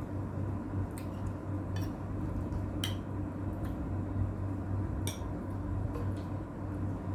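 Cutlery clinking against a plate a handful of times while eating, the sharpest clinks about three and five seconds in, over a steady low hum.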